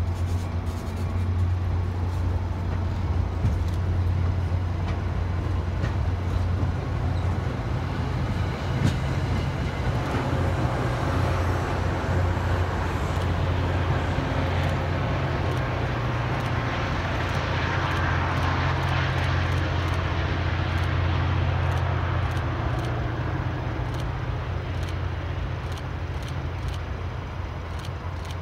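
MBTA commuter train pulled by an EMD GP40MC diesel locomotive, pulling out: a steady low diesel drone with the rumble of the coaches on the rails, fading over the last few seconds as the train moves off.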